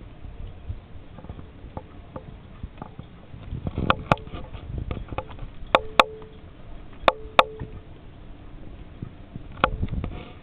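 Sharp knocks in close pairs, three times and then once more near the end, each with a short ringing tone, over a low rumble of water and wind.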